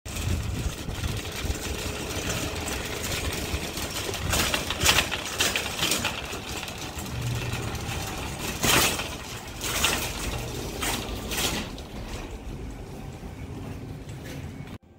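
Live ambient noise of walking through a supermarket's entrance vestibule: a steady low rumble with several sharp clatters and knocks in the middle, cutting off suddenly near the end.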